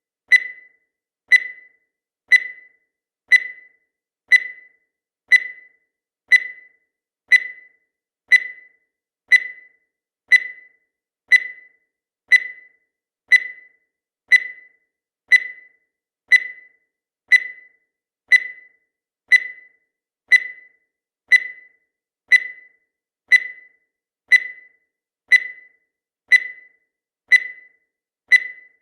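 Countdown timer sound effect: a short, high electronic beep once every second, each one fading away quickly.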